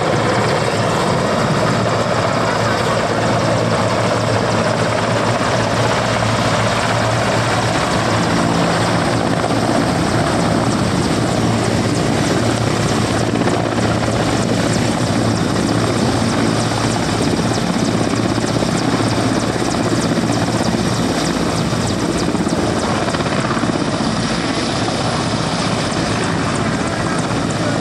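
Mil Mi-17 helicopter's twin turboshaft engines and main and tail rotors running loud and steady as it settles from a low hover onto the ground and keeps running there. It is a little quieter near the end.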